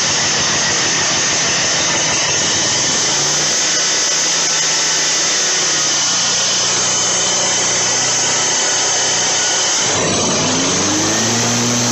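Kawasaki FH680V 23 hp V-twin engine on a zero-turn mower running loudly and steadily, with new ignition coils fitted to cure sputtering and dying under load. Near the end its pitch rises and falls briefly.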